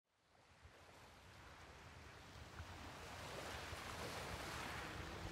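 Gentle ocean waves washing onto a sandy beach: a soft, even hiss that fades in from silence and grows louder over the first few seconds, then holds steady.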